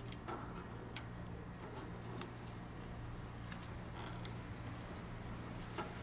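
Air conditioner capacitor terminals and wire connectors being handled by gloved hands: a few faint, irregularly spaced clicks as connectors are fitted back on. A steady low hum sits underneath.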